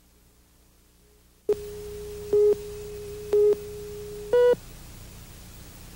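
Countdown leader tones: after a near-silent start, a steady low tone comes in about a second and a half in. Three louder beeps sound over it a second apart, the last one higher in pitch. The tone stops with the last beep, leaving a faint hiss.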